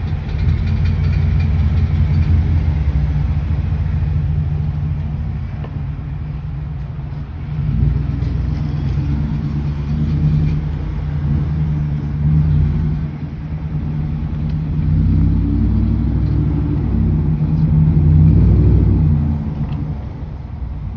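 Ford F-150's 5.0 Coyote V8 running and revved up and down several times, with the rattling noise the owner is recording it for.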